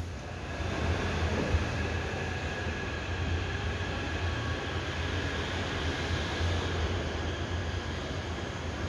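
Taipei Metro train running on the elevated viaduct: a steady rumble with a faint whine above it.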